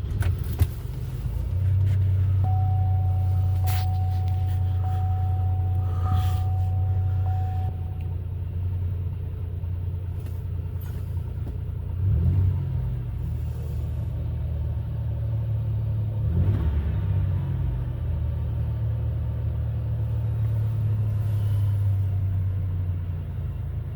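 The 3800 Series II supercharged V6 of a 2004 Chevrolet Impala SS has just started and settles into a steady idle, heard from inside the cabin. A faint steady tone sounds for about five seconds from about two seconds in.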